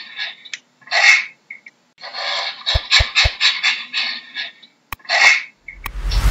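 Chimpanzee calling in short, breathy, panting bursts, repeated in quick runs. Three quick low thumps come about three seconds in.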